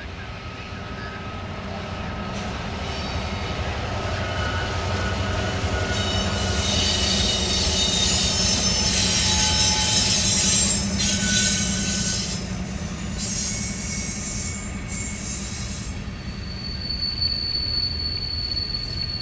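Empty coal train passing: the EMD SD70ACe and GE AC44CW diesel locomotives rumble by, then the empty coal hopper cars roll past with high-pitched wheel squeal. The squeal is loudest around the middle and settles into one steady high squeal near the end.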